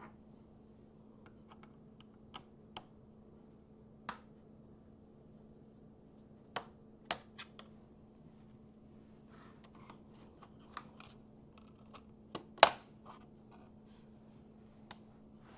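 Plastic snap clips of a laptop's bottom cover clicking and popping as it is pried loose with a spudger: a dozen or so sharp, irregular clicks, with the loudest snap about three-quarters of the way through.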